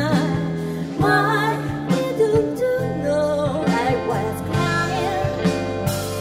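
A woman singing a pop song into a microphone, her voice carried over an instrumental accompaniment.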